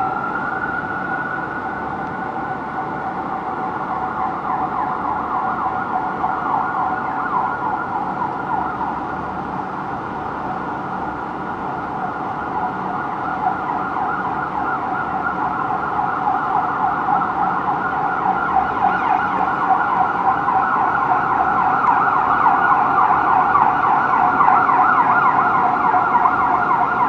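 Emergency vehicle sirens from a responding fire engine and ambulance, heard from high above the street. A wail climbs at the start, then rapid yelping sweeps carry on and grow louder toward the end as the vehicles come closer.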